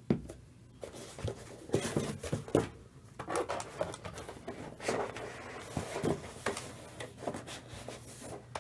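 Scattered light taps and rustles of trading cards being handled on a tabletop by a gloved hand.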